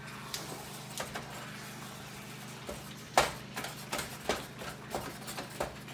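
Spatula scraping and knocking against a skillet while stirring browned ground beef, in a string of irregular clicks and taps with one louder knock a bit past three seconds in, over a steady low hum.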